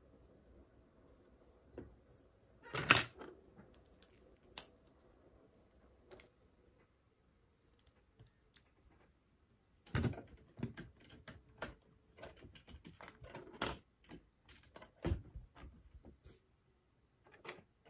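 Plastic LEGO bricks clicking and clattering as pieces are handled and pressed together, in irregular sharp taps. There is a loud cluster of clicks about three seconds in and a quick run of taps in the second half.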